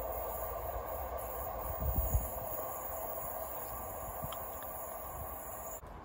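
Diesel multiple-unit passenger train running away along the line, a steady engine and wheel drone fading slowly, with a few low thumps of wind on the microphone about two seconds in. The sound cuts off abruptly near the end.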